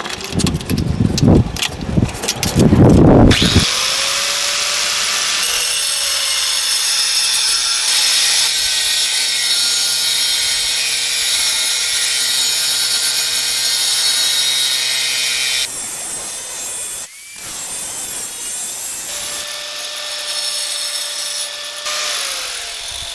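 Angle grinder cutting the edge of a steel washer on a tie-down ring: a few seconds of clanking as the part is set in place, then the grinder runs with a steady whine and hiss of grinding metal for about twelve seconds. It stops briefly, runs again for about three seconds, and winds down near the end.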